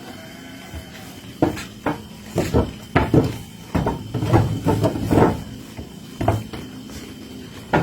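Garut sheep in a wooden pen, feeding on fresh grass: a string of irregular knocks and thumps on wood, most of them clustered through the middle.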